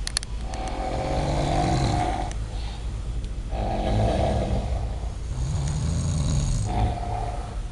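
A person snoring very loudly in deep sleep: long, rattling snores, one every breath, with short pauses between them.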